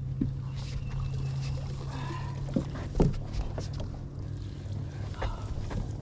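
A large largemouth bass being netted out of weedy water: a few sharp knocks and splashes, the loudest about three seconds in, over a steady low hum.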